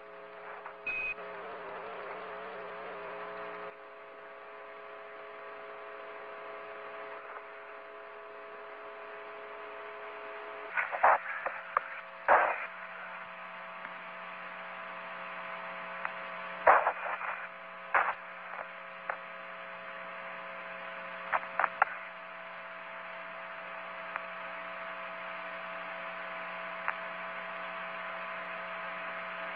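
Steady electronic hum of several tones over a radio-like hiss, with sharp crackles and clicks breaking in a few times, most of them clustered through the middle.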